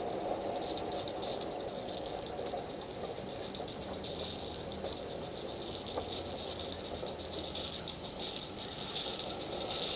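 Small 16mm-scale live steam locomotive hissing and chuffing with a quick, light beat as it hauls a freight train along garden track, growing louder near the end as it approaches.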